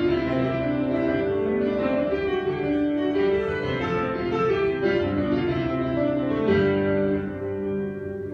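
Electric stage keyboard with a piano sound, playing slow, sustained chords. It grows a little quieter near the end.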